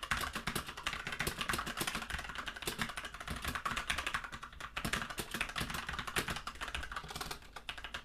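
Royal Kludge mechanical keyboard being typed on fast and steadily during a typing race, a dense run of key clicks with a brief lull near the end.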